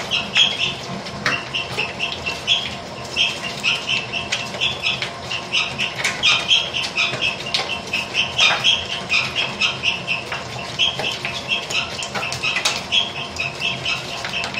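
Spiral dough mixer kneading a large batch of bread dough: the dough slaps and pops against the steel bowl in quick, irregular bursts over the steady hum of the machine. The popping is the sign that the dough is reaching its proper point of development.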